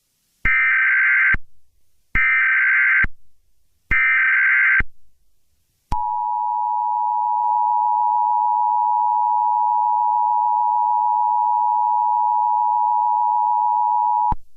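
Emergency Alert System SAME header, three short screeching data bursts, followed by the EAS two-tone attention signal, a steady beep held for about eight seconds before it cuts off. Together they mark the start of an emergency alert broadcast.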